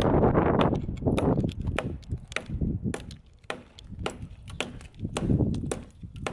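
Machete hacking at tree branches: irregular sharp chops and snaps of wood, about three a second, over bursts of rustling branches.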